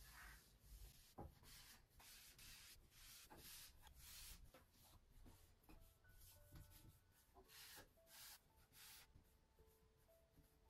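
Faint soft rubbing strokes of a cloth wiping along a painted headboard's spindles and rail while dusting. Faint music notes come in about halfway through.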